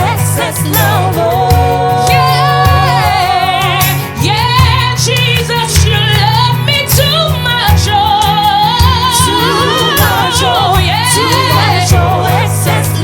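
Live gospel worship music: a band with steady deep bass and cymbal hits under singing that moves in long, wavering, ornamented vocal runs.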